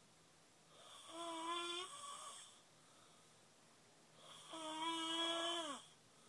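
Snoring with a high, whining tone, twice: each snore lasts about a second and a half, holds one steady pitch and drops off at the end.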